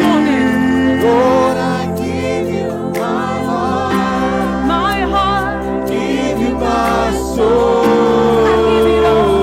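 Live worship music: several voices sing long, wavering notes over steady held chords from the band.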